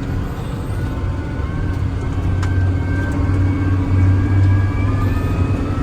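Log skidder's diesel engine running steadily while the machine is driven, a low continuous hum with a faint higher whine that drifts slightly in pitch.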